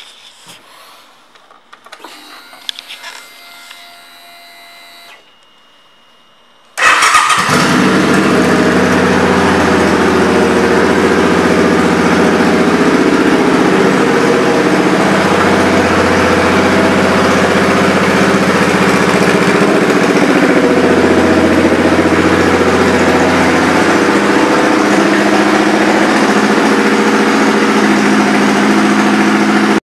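2007 Suzuki Boulevard C50's 805 cc V-twin with Cobra aftermarket pipes firing up about seven seconds in, after a few faint clicks and a faint hum, then idling loudly and steadily.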